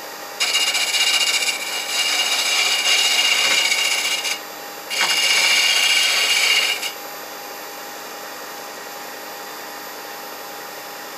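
A turning tool cutting into a spinning wooden yo-yo blank on a Record Power lathe: a loud scraping hiss in two spells, broken briefly about four seconds in and stopping about seven seconds in. After that only a steady machine hum goes on.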